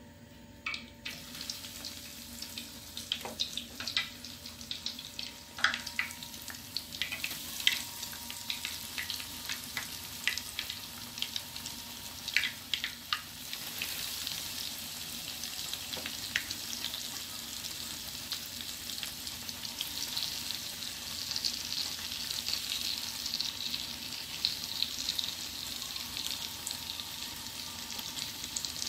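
Frozen, cornstarch-coated potato strips frying in hot oil. For roughly the first half there are many sharp pops and crackles, which settle into a steady sizzle.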